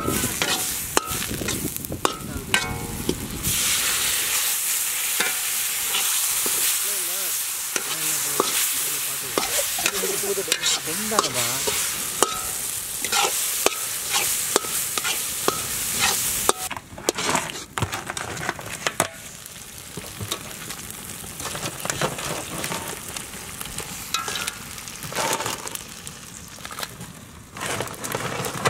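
Steel spatula scraping and knocking against a large iron kadai as a spiced onion-tomato masala is stirred and fries with a sizzle. The sizzle is loudest over the first half; after that the scraping and knocking go on over a softer fry.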